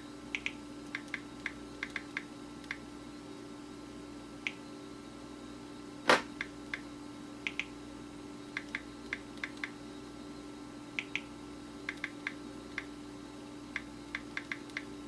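Irregular light clicks of a finger tapping on a smartphone touchscreen, several in quick pairs and runs, with one louder knock about six seconds in. A steady low hum runs underneath.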